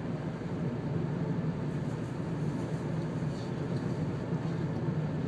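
Steady road noise inside a moving car's cabin at highway speed: a constant low hum from the engine and tyres on asphalt.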